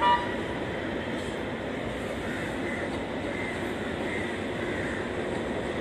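Steady rumble of an approaching diesel locomotive and rail traffic. A short, loud, high tonal blast sounds right at the start.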